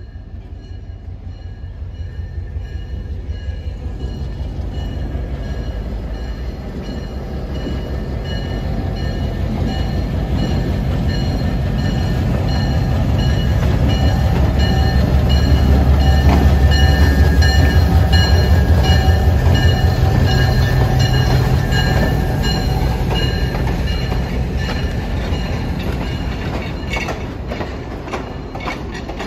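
Diesel locomotive hauling passenger cars past, its engine's low rumble building to its loudest about halfway through and then fading away. Steady thin high tones ring above the rumble, and a few rail clicks come near the end.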